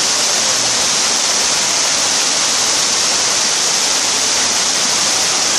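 A steady, loud rushing hiss with no breaks, mostly high in pitch, like falling water.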